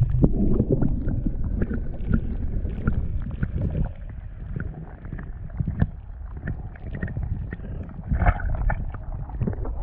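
Muffled underwater sound picked up by a submerged camera: a dense low churning of water stirred by a hand holding a largemouth bass, with scattered small clicks and taps. The sound swells briefly about eight seconds in.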